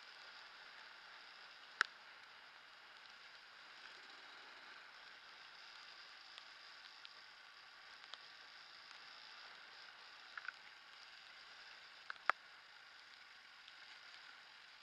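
Yamaha DT230 Lanza two-stroke trail bike riding a wet, muddy dirt track, heard faintly as a steady, muffled wash of engine, tyre and water noise. Two sharp knocks stand out, one near the start and one near the end, with a few smaller clicks between.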